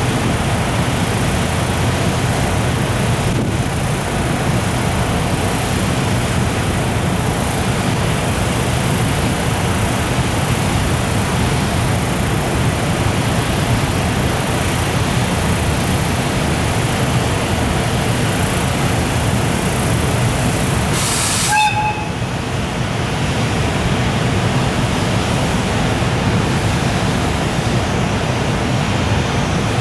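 Electric-hauled freight train of container flat wagons rolling past steadily with a continuous low rumble. A brief high-pitched sound with a few short tones cuts in about 21 seconds in.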